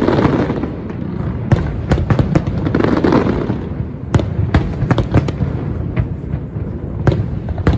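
Aerial firework shells bursting one after another: many sharp bangs over a continuous dense crackle and rumble.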